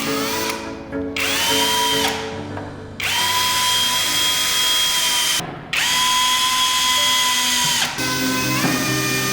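Small electric drill running in three bursts, its whine rising as it spins up and dropping as it winds down each time, then running on at a lower pitch near the end. Background music plays underneath.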